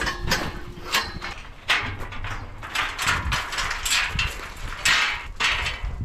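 Galvanised steel sheep hurdles rattling and clanking as they are handled and moved, a run of irregular metal knocks, with sheep shuffling about in the pen.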